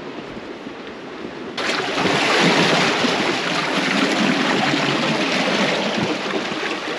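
Ocean surf rushing against a rocky shoreline, a steady loud wash of breaking water that starts suddenly about a second and a half in.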